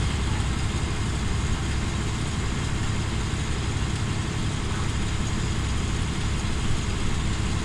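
Volvo B10BLE bus's diesel engine running steadily, heard from inside the passenger saloon with a low drone and an even hum of road and cabin noise.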